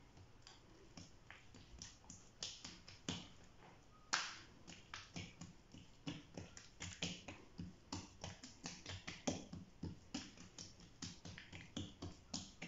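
Oiled hands patting and pressing msemen dough flat on a greased tray: a run of quiet, irregular sticky smacks and taps, a few a second, growing denser from about four seconds in.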